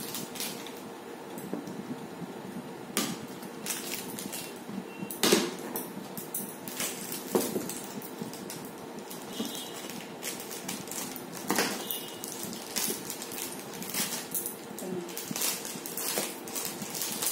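Ice cream bar wrappers being cut open with scissors and pulled off by hand: crinkling wrapper noise with many scattered clicks and knocks as sticks, scissors and bowls touch the tabletop.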